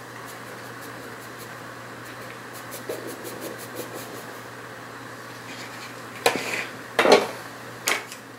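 Flour being tipped from one plastic mixing bowl into another, with a soft low hiss. Near the end come three sharp knocks as the plastic bowl is tapped and set down.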